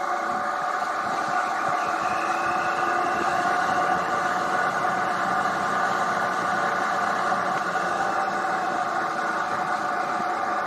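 2018 Triumph Tiger 800 XRT's three-cylinder engine running steadily at cruising speed.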